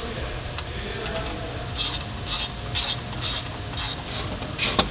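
Hand ratchet wrench turning an engine-bay bolt, the pawl clicking in short bursts about twice a second from about two seconds in, with a sharper click near the end.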